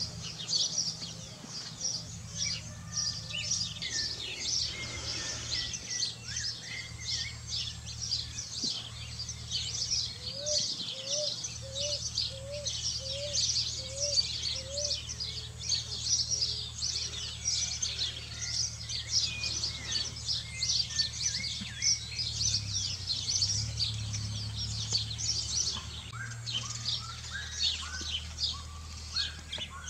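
Many small birds chirping quickly and continuously in a dense chorus. Partway through, a short run of about seven lower rising calls is heard, all over a steady low hum.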